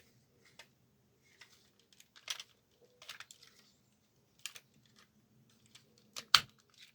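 Hard plastic parts of a vintage Diaclone Galaxy Man toy being handled and fitted together: a scatter of light clicks and taps, with one sharper click a little after six seconds in as a piece snaps into place.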